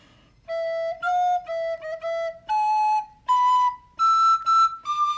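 Plastic soprano recorder playing a simple melody in separate tongued notes. It opens with a run of short low notes and then climbs step by step to higher, longer ones.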